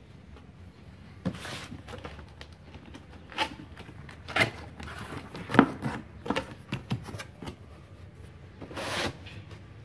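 Cardboard box being opened by hand: packing tape ripped off the top seam and the flaps pulled back. A run of irregular rips, scrapes and knocks of cardboard, loudest about halfway through, with a longer rustle near the end as a flap is swung open.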